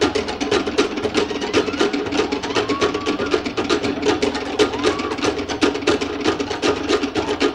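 Cook Islands drum ensemble playing the beat for an ura pa'u drum dance: wooden slit drums (pate) struck in a fast, even rattle of many strokes a second over a fuller drum sound.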